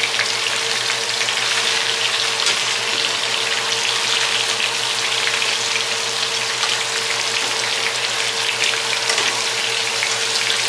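Chicken pieces searing in hot fat in a pot: a steady, dense sizzle full of fine crackles, with a faint steady hum beneath it.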